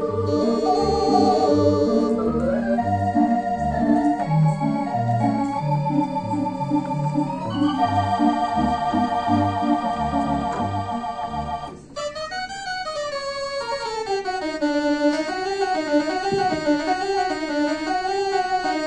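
Theatre organ playing live: sustained chords over a moving pedal bass line, then a short break about twelve seconds in, after which a melody line wavers up and down in pitch without the deep bass.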